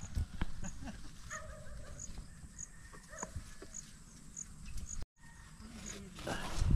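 Rural outdoor ambience: a faint high chirp repeating evenly about one and a half times a second, with scattered light knocks and rustles. The sound drops out briefly about five seconds in.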